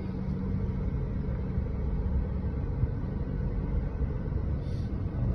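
Steady low rumble inside a car cabin: the car's engine running as it idles or creeps along.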